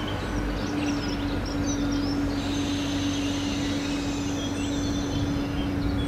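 Steady drone of a train engine running, with one held tone throughout, and birds chirping over it.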